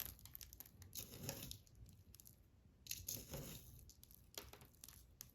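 Faint rustling and light clicks of sprinkles being shaken onto a buttercream-topped cupcake.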